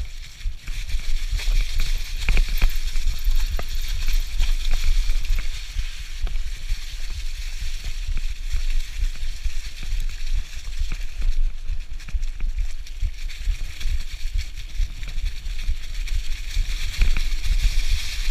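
Mountain bike tyres rolling over a trail covered in dry fallen leaves, rustling and crunching, with scattered clicks and knocks from the bike over bumps. A steady low wind rumble runs underneath.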